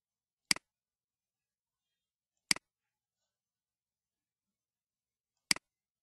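Computer mouse button clicked three times, each a quick double click of the button going down and coming back up.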